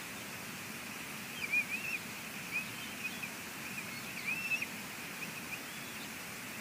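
Steady hiss of rain with a run of short, high, squeaky chirps from about a second and a half in until about five seconds: a bald eaglet calling as it is fed.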